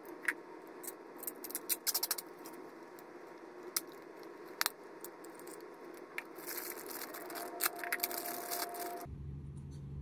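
Clear plastic gashapon capsule handled and snapped open with several sharp plastic clicks, then a thin plastic bag crinkling as the toy inside is unwrapped. About nine seconds in the crinkling stops abruptly and a low steady hum takes over.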